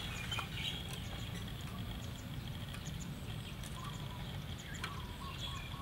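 Outdoor rural ambience: a steady low rumble with faint, scattered bird chirps and a few light clicks.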